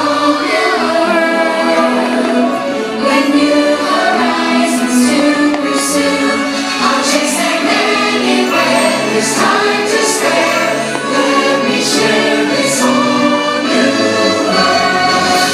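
Fireworks show soundtrack played loud: music with a choir singing a sustained melody.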